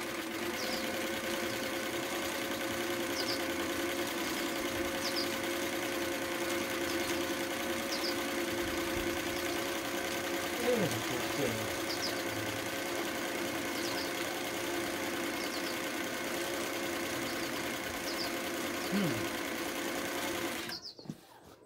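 Singer 319W zigzag sewing machine running steadily at speed, stitching a pattern cam combined with the chevron lever; the motor stops near the end.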